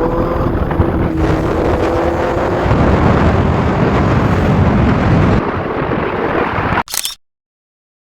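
Motorcycle riding sound: engine running under heavy wind rush on the microphone. It cuts off abruptly about seven seconds in.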